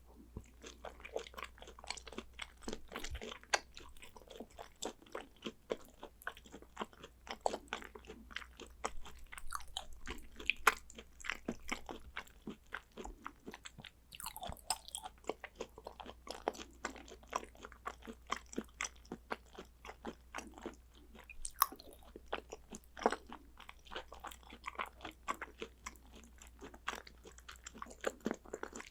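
Close-miked chewing of raw Hanwoo beef and sea urchin roe: a dense, irregular run of wet clicks, smacks and crunches, with a few louder snaps.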